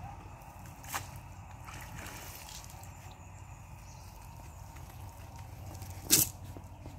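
Water dripping and trickling from a wet cast net as it is hauled out of a pond and lifted. There is a short sharp click about a second in and a louder sharp thump near the end.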